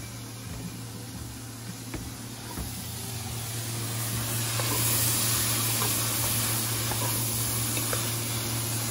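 Diced onion, celery and bell peppers sizzling in hot bacon fat and butter in an aluminum pot, the sizzle swelling from about three seconds in as they are stirred. Light taps and scrapes of a wooden spoon sound over it.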